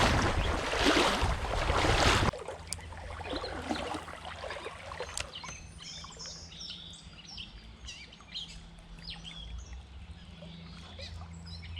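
A loud rushing noise for about the first two seconds that cuts off abruptly, then small birds chirping repeatedly over a faint steady background.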